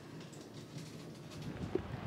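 Faint room tone, then about a second and a half in, wind starts buffeting the microphone with a low, gusty rumble.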